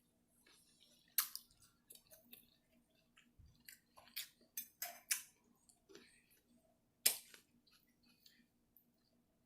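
Close-miked eating of shrimp stir fry: soft chewing with scattered sharp clicks and crunches, the loudest about a second in and again about seven seconds in.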